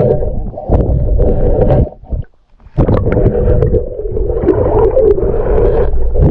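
Muffled underwater noise heard through a camera's waterproof housing as it is drawn up through the water: a steady rush and low rumble with a humming tone. It breaks off briefly about two seconds in, then resumes.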